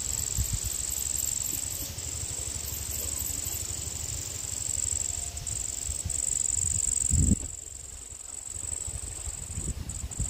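Insects trilling steadily at a high pitch over a low, uneven rumble. About seven seconds in there is a thump, and after it the trill is fainter.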